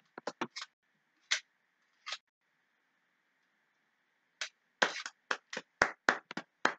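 A series of short sharp taps: a quick cluster of four or five at the start, two single ones a little later, then a faster run of about three to four a second in the second half.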